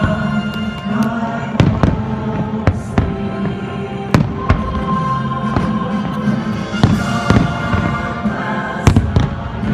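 Fireworks bursting in a rapid, uneven series of bangs and booms, heard over music from the show's soundtrack.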